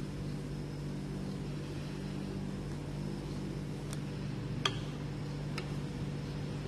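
Steady low machine hum with a few faint light ticks in the second half.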